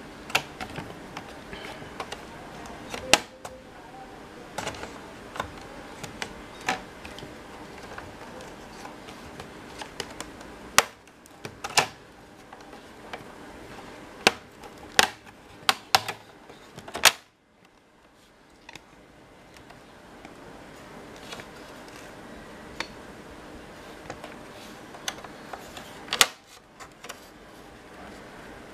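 Plastic screen bezel of a Dell Latitude E6500 laptop being pried off by hand and with a plastic opening tool, its snap-in clips letting go in a series of sharp, irregular clicks.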